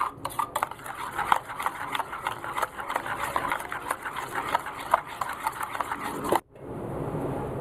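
Metal spoon stirring a thick mango pulp and yogurt mixture in a metal bowl: irregular clinks and scrapes of the spoon against the bowl. The sound cuts off suddenly near the end.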